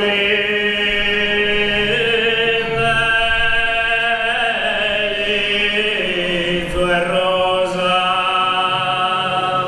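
Sardinian four-part male polyphonic singing (cuntzertu) with bassu, contra, boghe and mesu boghe voices. A low drone sits under a higher part in long held chords that move to new notes a few times.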